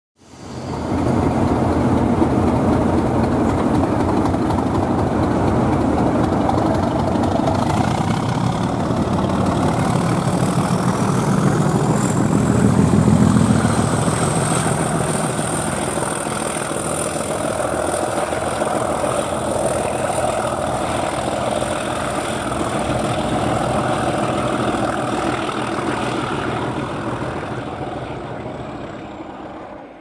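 Two English Electric Class 37 diesel locomotives passing under power with a snowplough, their engines running hard. A high turbocharger whistle rises about a third of the way in, then holds. The sound is loudest about halfway through and fades away near the end.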